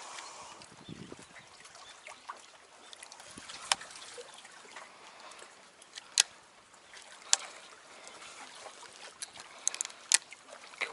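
Small waves lapping and trickling among concrete tetrapods at the water's edge. Over it come scattered sharp clicks from the rod and baitcasting reel being handled, a few of them close together near the end.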